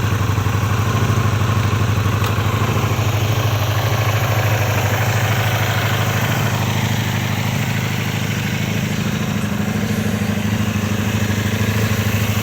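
1984 Honda VF500F Interceptor's V4 engine idling steadily.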